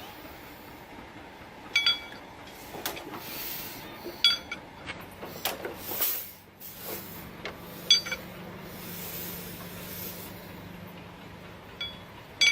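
Sharp metallic clinks, each ringing briefly, four times a few seconds apart over a steady hiss, with a faint low hum in the middle of the stretch.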